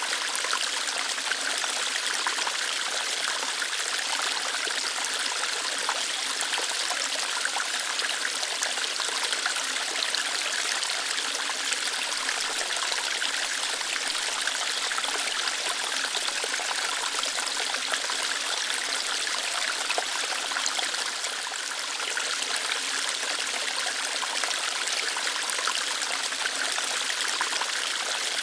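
Water flowing lightly through rocks in a small waterfall: a steady, even rushing and trickling.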